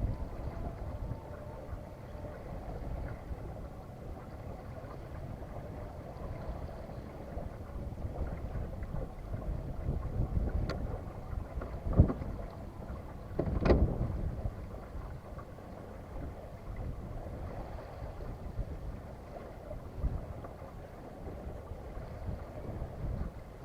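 Steady low wind rumble on the microphone aboard a small sailboat under sail, with three sharp knocks around the middle.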